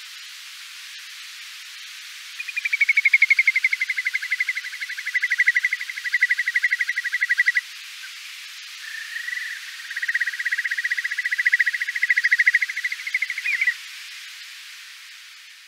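Whimbrel calling: two long, rapid rippling trills, the first starting about two and a half seconds in and the second following a second later, over a steady hiss.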